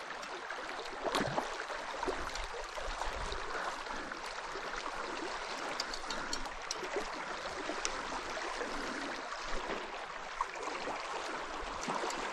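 River current rushing steadily, an even hiss of flowing water, with a few faint clicks through it.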